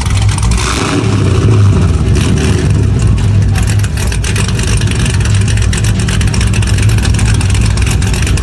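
A car engine running loudly and steadily, with a deep rumble.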